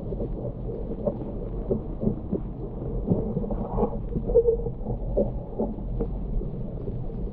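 Muffled underwater sound heard through a GoPro's waterproof housing in murky water: a steady low rumble with irregular soft ticks and knocks, all dull with no treble.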